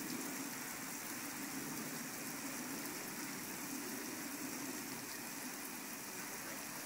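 Artificial rain from special-effects rain towers falling on a wet street: a steady hiss of water on the pavement, with a steady low hum underneath.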